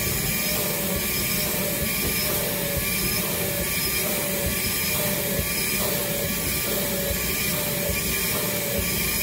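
Vacuum cleaner running steadily as its hose is worked over a bed mattress.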